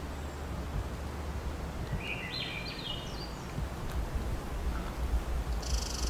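Woodland ambience: a constant low rumble, a short bird call of rising stepped notes about two seconds in, and a steady high-pitched buzz or trill that starts suddenly near the end.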